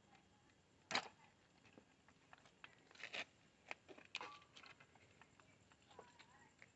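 Near silence broken by a few scattered sharp clicks and light knocks from handling parts during a repair, the loudest about a second in and several more between three and four and a half seconds in.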